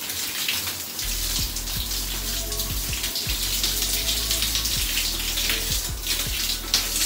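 Shower running: a steady hiss of water spraying and splashing in a tiled shower while hair is scrubbed. A low rumble joins about a second in.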